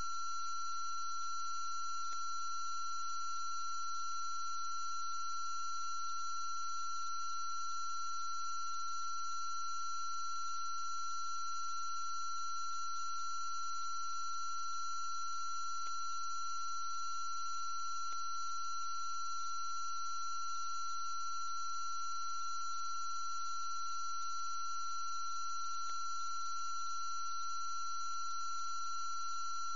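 Steady, unchanging high-pitched electronic tones over a faint hiss and low hum, with a few faint clicks.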